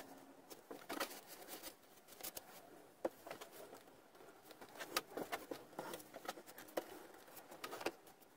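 Scattered light clicks, taps and rustling from hand work on a glued pine frame: a rag wiping the joints, a bar clamp's screw handle being turned, and timber being shifted and set down on the bench.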